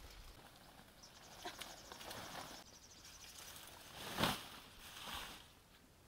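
Taro stalks and leaves rustling and snapping as they are picked by hand, with one sharp crack about four seconds in.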